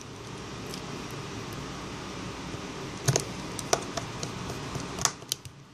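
A few sharp little clicks of a small screwdriver and metal parts inside an opened iPhone 5, heard about three seconds in and again near the end, over steady background noise.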